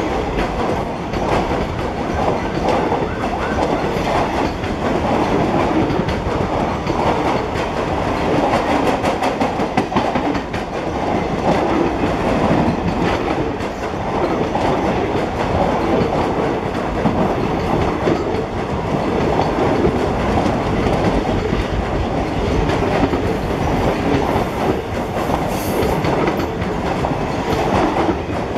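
Indian Railways passenger coaches passing close by at speed: a loud, steady rush of running noise with a rapid clatter of wheels over the rail joints.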